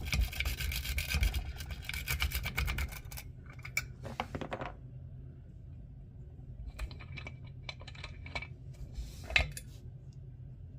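Dimple rake scraping rapidly in and out of a Medeco Duracam biaxial dimple lock held under tension by a pry bar: a fast run of metallic clicks and scratches for about three seconds. After a short pause come scattered clicks, with one sharper click near the end.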